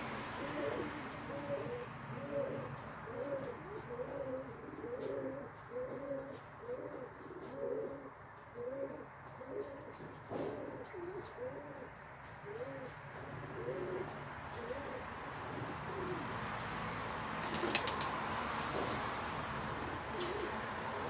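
Racing pigeons cooing: a long run of low, repeated coos, one after another, fading out toward the end. A short clatter of sharp clicks comes near the end.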